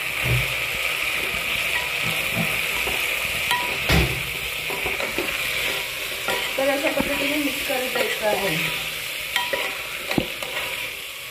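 Goat trotters and masala frying in oil in a pressure cooker, with a steady sizzle. A spatula stirs them, scraping and knocking against the pot, with a louder knock about four seconds in.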